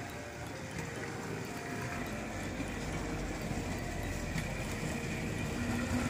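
Battery-powered toy Thomas locomotive running on plastic track: its small electric motor whirring steadily, with light clicking from the wheels on the track.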